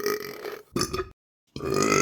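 A person burping: a long, drawn-out burp with a steady pitch ends about two-thirds of a second in, and a short burp follows. After a brief gap another long burp starts near the end.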